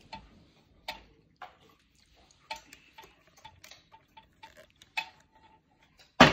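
Light, irregular clicks and ticks while a plastic water bottle is swung and handled, then a loud sharp thud about six seconds in as the flipped bottle lands.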